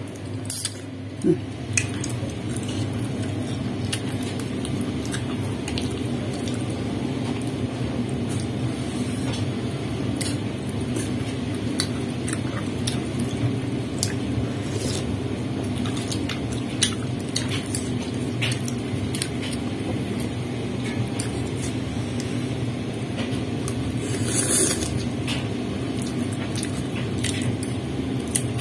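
Close-up eating sounds of a bowl of meatball noodle soup: wet chewing and mouth sounds, with scattered sharp clicks of a ceramic spoon and a fork against the ceramic bowl, over a steady low hum. One louder, hissy noise comes a few seconds before the end.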